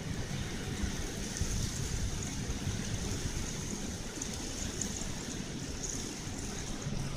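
Heavy downpour of rain, a steady even hiss with no letup.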